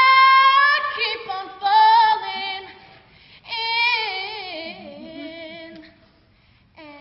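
A cappella solo female voice singing unaccompanied: a held high note, then short sung phrases, then a long, wavering run that falls in pitch, with brief pauses between phrases.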